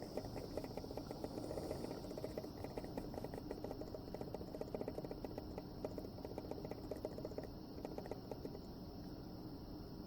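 Rapid fine crackling, a sizzle from a hot soldering iron tip burning a skin tag. It thins out about eight seconds in, over a faint steady high whine.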